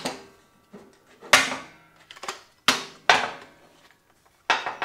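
Handling clatter of a Skil 2x20V cordless circular saw being turned over on a metal table saw top: four sharp clacks, each with a short metallic ring.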